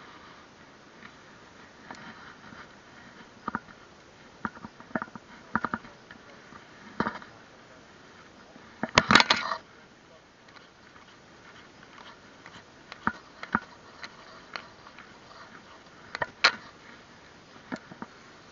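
Handling noise from a fishing magnet and its rope worked by gloved hands close to the camera: scattered light clicks and knocks, with a louder rattling clatter about nine seconds in and another sharp knock near the end.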